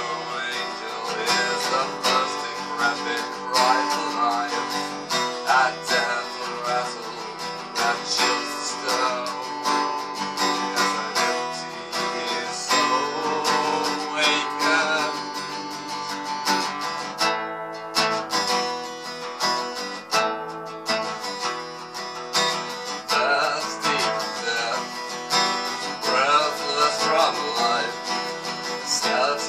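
Acoustic guitar being strummed and picked, playing a song.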